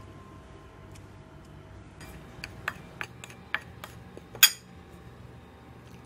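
Stainless steel spoon clinking and scraping against a ceramic plate while stirring dry flour and spices. A run of sharp clinks starts about two seconds in, the loudest coming a little past the middle.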